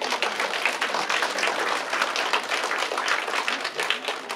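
Applause: a group of people clapping their hands in a dense, steady patter that starts suddenly and thins out at the end.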